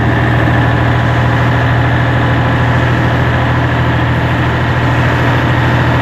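FNM 180 truck's six-cylinder diesel engine running steadily under way, a low, even drone with no change in revs.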